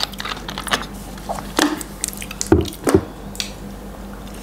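Close-up wet mouth sounds of drinking and chewing: scattered smacks and clicks, with two low thumps a little past halfway.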